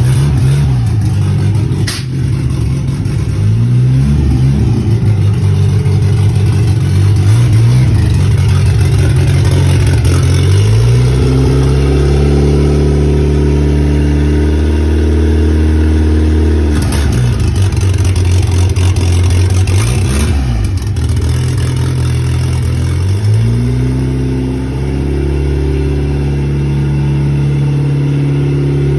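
Turbocharged Chevrolet Corsa pickup engine pulling away and driving, its revs climbing and falling several times. There is a brief turbo flutter where the throttle closes.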